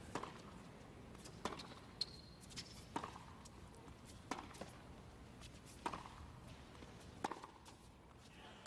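Tennis rally: a ball hit back and forth with rackets, sharp strikes about every one and a half seconds, with the ball's bounces on the court between them.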